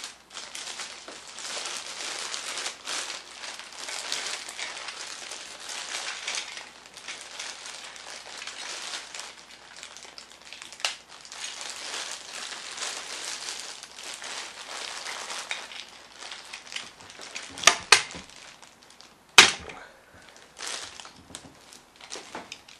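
Thin plastic baggie crinkling and rustling as a toy is worked out of it. Three sharp clacks come about three quarters of the way through, two close together and then a louder one a second and a half later, followed by a few lighter clicks.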